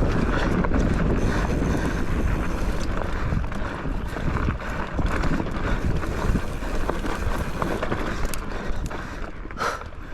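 Wind buffeting the microphone during a mountain-bike ride: a steady low rumble, with a brief louder hiss near the end.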